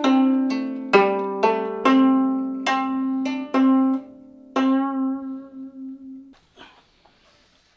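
Gayageum, the Korean plucked zither, being played: a slow phrase of single ringing plucked notes, each half a second to a second apart. The last note is held with a wavering vibrato and fades out about six seconds in, followed by a faint soft rustle.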